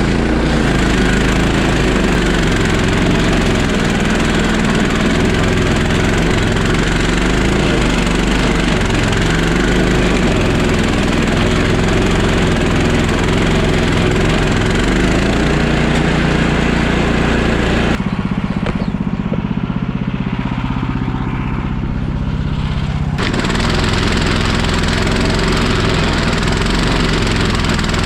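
Petrol stump grinder running at working speed, its engine note steady under a rough grinding noise as the cutter wheel chews into the stump. About two-thirds of the way in, the grinding noise drops away for about five seconds, leaving only the lower engine note, then comes back.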